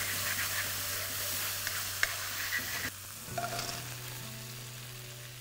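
Schezwan sauce sizzling in a hot wok while a spatula stirs it, with a few light clicks of the spatula against the pan. About three seconds in the sizzle gets quieter as the fried vegetables are tossed through the sauce.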